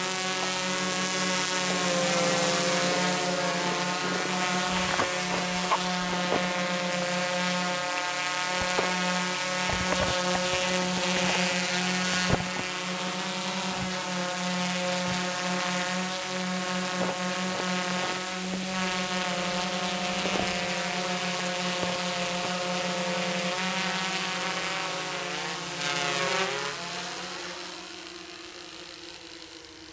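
TBS Discovery quadcopter's four DYS BE3608 630kv pancake brushless outrunner motors and propellers buzzing steadily in flight. The pitch wavers with throttle, bends near the end, and the sound fades as the quad moves away.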